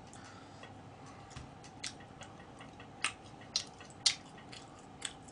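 Faint, scattered sharp clicks of eating, several of them spaced about half a second apart in the second half, from a person eating chicken with chopsticks, over quiet room noise.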